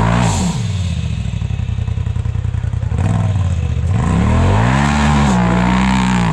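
Side-by-side UTV engine on throttle: the revs fall away just after the start and run low and choppy for a few seconds, then climb again about four seconds in and hold before dropping off near the end.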